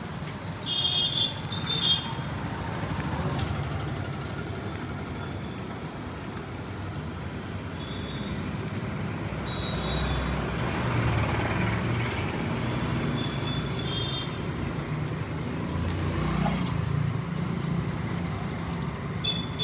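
Steady roadside traffic noise from passing vehicles, with short high-pitched tones breaking through a few times.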